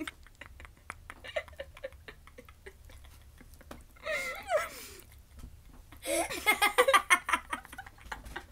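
Two girls, a young child and a teenager, laughing. It starts as quiet breathy laughter, with a high laughing squeal about four seconds in, and turns to loud, rapid laughter from about six seconds.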